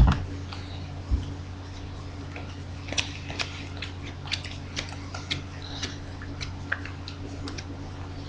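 A single bump right at the start, then a steady low electrical hum with scattered small clicks and ticks from about three seconds in.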